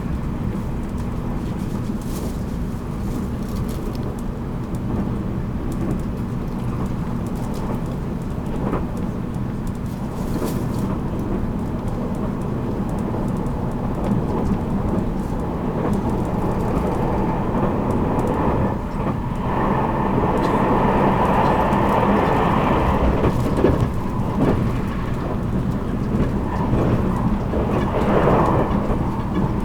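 Running noise inside a JR Kyushu 783 series electric limited express, heard from motor car MoHa 783-13: a steady rumble of wheels on rail with a low hum from the drive. About two-thirds of the way through it grows louder and brighter for several seconds, then settles again.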